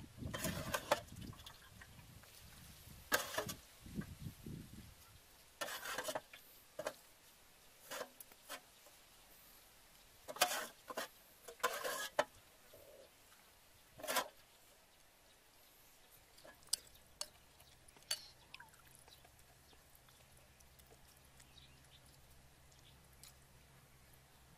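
Scattered short clinks and splashes of fish soup being spooned into a ceramic bowl, about a dozen of them, irregularly spaced.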